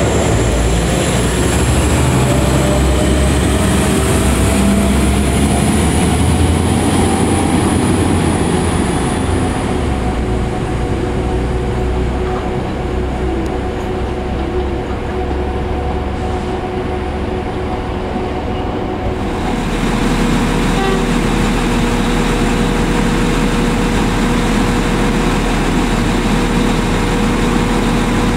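Northern Ireland Railways CAF diesel multiple units running at the platform: engine drone and wheel noise on the rails, with a whine that rises in pitch over the first few seconds. About two-thirds of the way through the sound changes abruptly to a steadier hum with one held tone.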